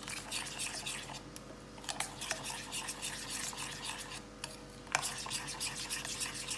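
A metal spoon stirring a thick spiced yogurt marinade in a glass bowl: continuous wet scraping, with a few sharp clicks of the spoon against the glass.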